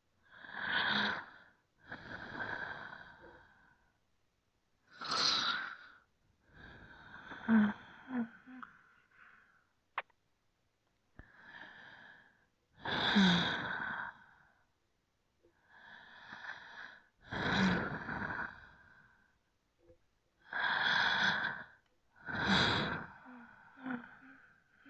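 A person breathing slowly and deeply, in and out, about a breath every two seconds with short pauses between. A few of the breaths carry a brief low throaty note.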